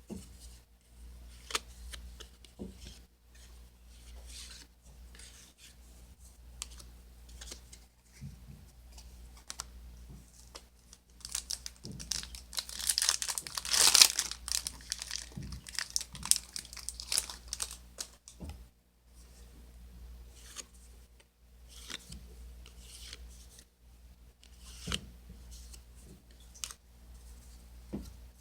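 A Yu-Gi-Oh booster pack's foil wrapper crinkling and tearing open, loudest in a dense stretch around the middle, with scattered small clicks and rustles before and after.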